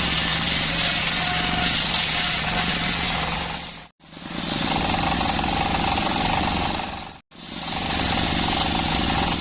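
Circular saw machine (serkel) running and cutting waru wood: a steady low hum under a loud hiss, heard in three stretches, each cut off abruptly into silence.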